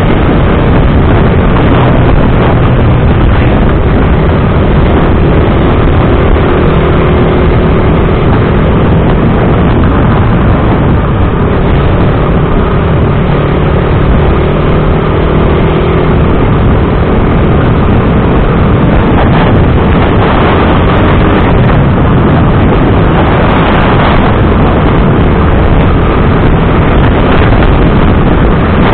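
Motorcycle riding at road speed: loud, steady wind rush over the microphone, with the engine running underneath at an even pitch.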